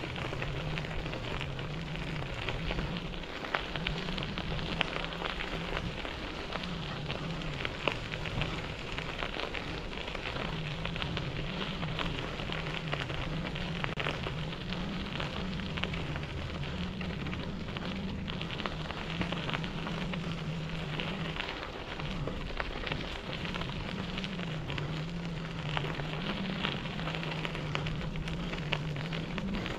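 Bicycle tyres rolling over a dirt and gravel trail: a steady crackle of grit with small rattles and ticks, under a low hum that wavers up and down.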